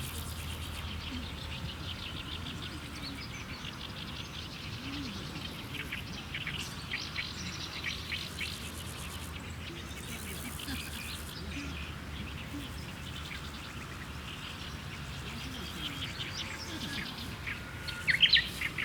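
Woodland birds chirping and calling, many short chirps over a steady low background noise, with a louder cluster of calls near the end.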